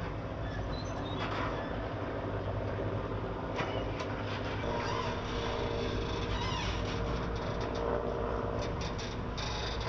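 An engine running steadily with a low hum, with scattered clicks and knocks over it.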